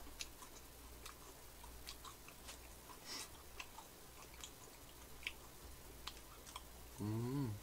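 Faint close-miked chewing of a macaron: soft mouth sounds with small crisp clicks from the shell. Near the end there is a short hummed 'mm'.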